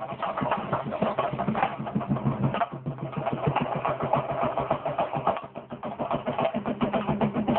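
Chenda drums beaten fast and continuously, dense rolling strokes over a steady low hum; the beating eases off briefly twice.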